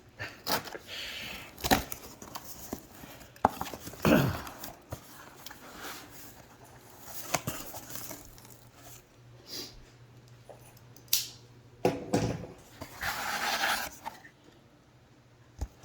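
Handling of a cardboard shipping box and its packaging: scattered knocks and taps with several stretches of rustling and scraping, like tape or cardboard being worked open.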